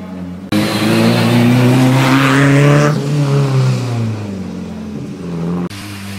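Rally car engine revving hard as the car comes up the wet road and passes, its pitch rising and then dropping, with tyre hiss on the wet road at its loudest. The sound cuts abruptly about half a second in and again near the end, where another car's engine is heard running lower.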